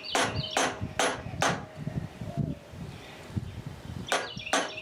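Framing hammer striking a screwdriver with a metallic ring, driving at broken-off wood screws to bust them out: four quick blows, a pause with some handling noise, then two more blows near the end.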